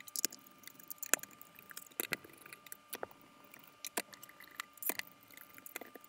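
Scattered small sharp clicks and taps of a precision Phillips screwdriver working the tiny screws out of a laptop's bottom cover, with a faint steady high tone behind.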